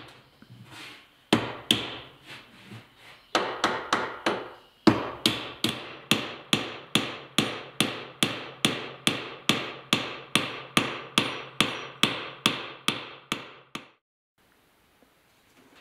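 Small hammer tapping a wooden wedge into the top of a table leg's joint: sharp wooden knocks, a few spaced taps at first, then a quick even run of nearly three taps a second that stops abruptly near the end.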